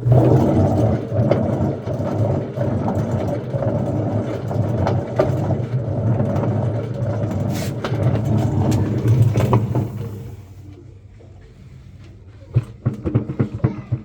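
Samsung washing machine running loud and rough, a steady low rumble that dies down about ten seconds in, followed by several sharp knocks near the end. The rumble is the sign of worn-out drum bearings.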